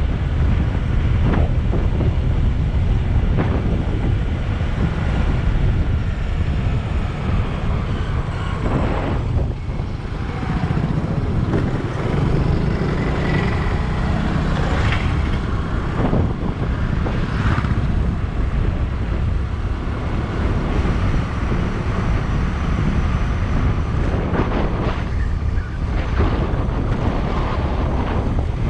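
Wind buffeting a helmet or action-camera microphone on a moving motorcycle, over the running engine and passing road traffic, with a few vehicles sweeping by.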